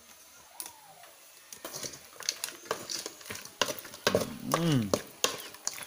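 Metal ladle scraping and clattering against an aluminium pot as chicken pieces are stirred and fried, with a light sizzle; the stirring starts about a second and a half in. A man's voice makes a short drawn-out sound about four seconds in.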